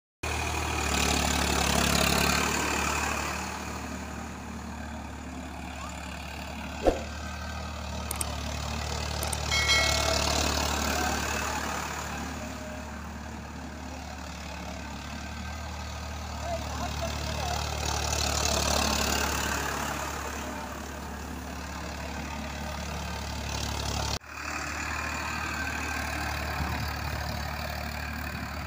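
Farmtrac tractor's diesel engine running as the tractor drives round over harvested finger millet to thresh it, growing louder and fading again as it passes, three times. A sharp click about seven seconds in, and a brief dropout near the end.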